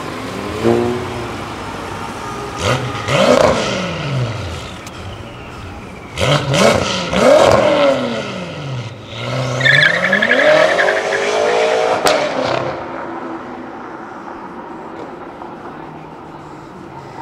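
Modified cars revving and accelerating hard, the engine pitch climbing and dropping in several loud pulls. A high whine rides on the longest pull about ten seconds in, and things settle to a quieter engine hum near the end.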